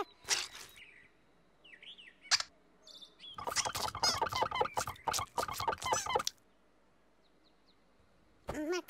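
Makka Pakka's babbling character voice: a rapid run of high, chirping syllables lasting about three seconds in the middle, after a short noisy burst and a single click near the start.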